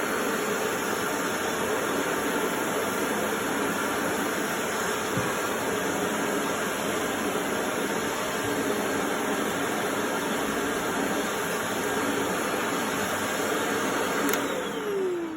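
Corded vacuum cleaner motor running steadily. Near the end it is switched off with a click, and its whine falls in pitch as the motor winds down.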